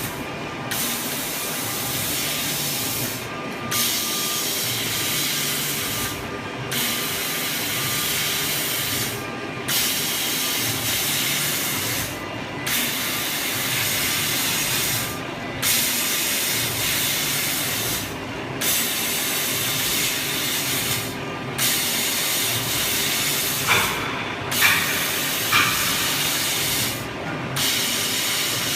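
CO2 laser cutting machine cutting stainless steel sheet: a steady hiss that breaks off briefly about every three seconds, with a few sharp clicks near the end.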